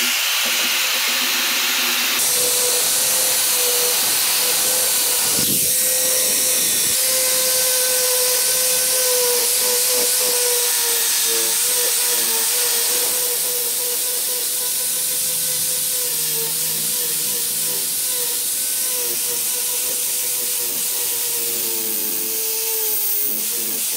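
Angle grinder with a sanding disc grinding a steel knife blade: a steady motor whine over a hiss of abrasion, throwing sparks. For the first two seconds a rotary brass wire brush scrubs the blade instead.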